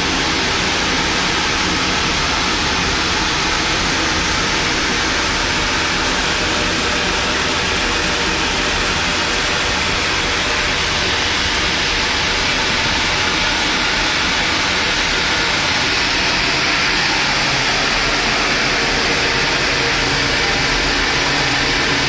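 A large machine running steadily: a loud, even rushing noise with a low hum beneath it, unchanging throughout.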